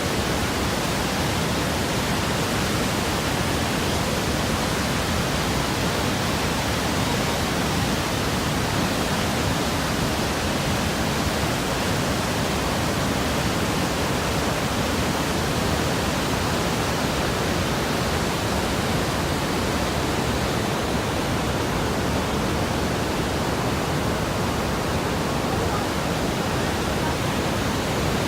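Roar of the Rhine Falls: a large waterfall's falling water heard close up as a loud, steady rush.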